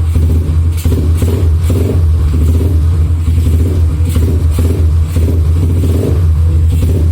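Yamaha Scorpio single-cylinder four-stroke engine in a KTM-bodied trail bike running, with the throttle blipped in repeated short surges over a steady low beat.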